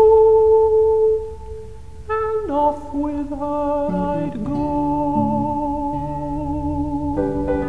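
Background music: a slow melody of long held notes with a slight waver, over a soft low accompaniment.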